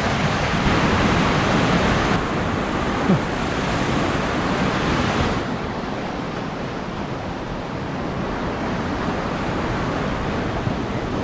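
Steady rush of river water pouring over a low dam as whitewater, dropping somewhat in level about five seconds in. A single brief knock about three seconds in.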